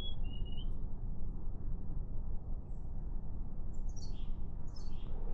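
A bird calling: a short two-part whistle right at the start, then a few high chirps about four seconds in, over a steady low rumble.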